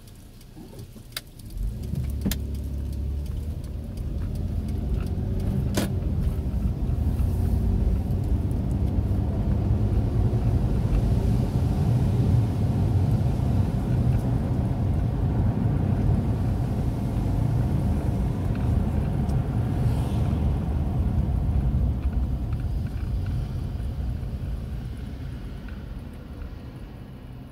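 Road noise inside a moving car's cabin: a low engine and tyre rumble that builds as the car pulls away, holds steady while cruising, and eases off near the end as it slows down. A few sharp clicks sound in the first few seconds.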